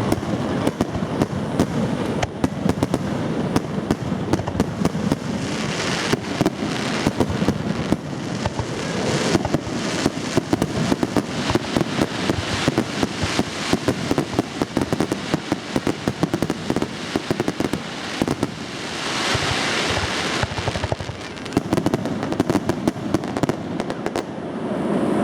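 Fireworks display heard at close range: a rapid, continuous barrage of pops and crackles. Two swells of hissing crackle come about six seconds in and again around nineteen seconds.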